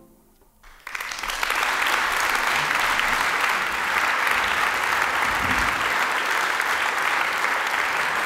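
Concert audience applauding. After a moment of near silence, the clapping starts about a second in and stays dense and steady.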